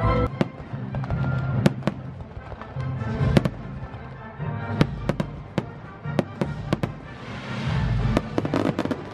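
Fireworks display: aerial shells bursting in a string of sharp bangs a second or so apart, with a dense run of crackling reports near the end, over background show music.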